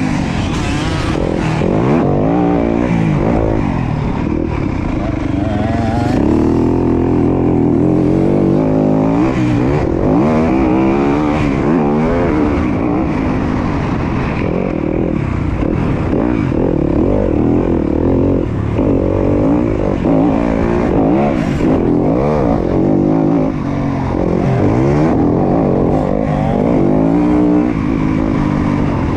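Dirt bike engine being ridden hard, revving up and dropping back over and over as it accelerates, shifts and brakes.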